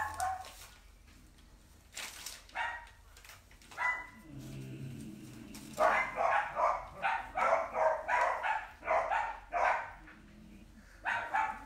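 A dog barking: a few single barks, then a fast run of barks about three a second from about six seconds in to nearly ten seconds, starting up again near the end.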